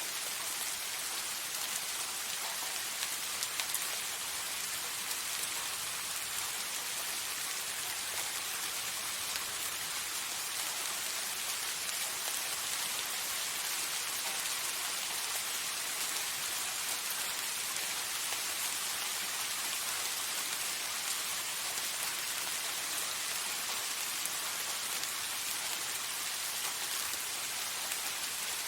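Steady soft rain falling on a surface, an even hiss of many small drops with no thunder.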